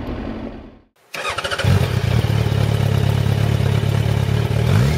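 A 2001 Yamaha FZ1's 1,000 cc inline-four engine running steadily under way, its low even engine note over a steady rushing noise. The sound drops out briefly about a second in, then comes back loud, with a short rise in pitch near the end.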